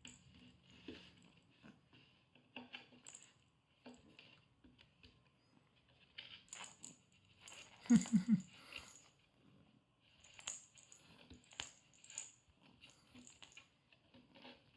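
A kitten playing with a feather wand toy in a wooden box: scattered light taps, clicks and scrapes of paws, toy and wand against the plywood. A louder cluster of knocks about eight seconds in, as the kitten grabs and bites the toy inside the box.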